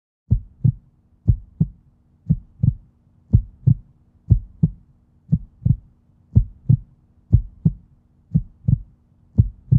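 Heartbeat sound effect: deep paired thumps, lub-dub, about once a second and ten in all, over a faint steady low hum.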